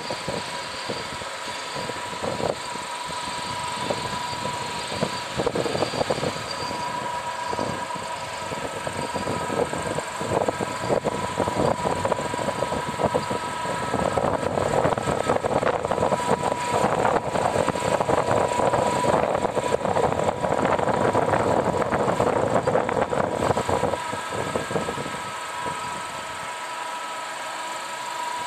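NH26 engine lathe running, turning a long shaft, with a steady high tone over a rattling, grating noise. The noise grows louder about halfway through and eases a few seconds before the end.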